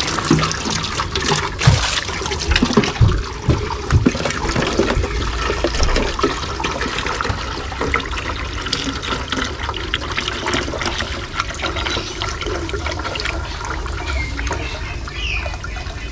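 Water running from a hose, pouring into and over clear plastic fish containers and splashing into a basin as they are rinsed. Knocks and clatters of plastic being handled come mostly in the first few seconds.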